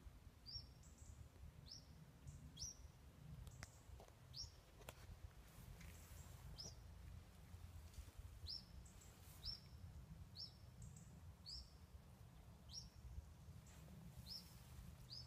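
Faint, short high chirps from a small bird, repeated irregularly about once a second, each a quick drop in pitch, over a low steady rumble.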